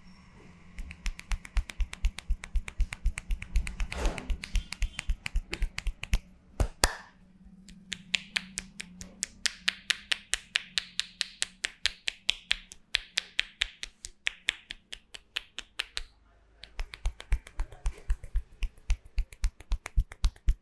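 Barber's hands tapping and slapping a head in Indian head-massage style, a fast, even run of sharp clicks, several a second. The tapping stops briefly about three-quarters through, then resumes.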